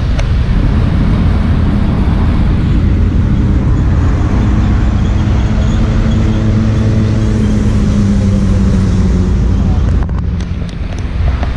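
Royal Enfield motorcycle engine running while riding, with wind and road noise rushing over the microphone. The low engine hum holds steady through the middle and drops off briefly near the end.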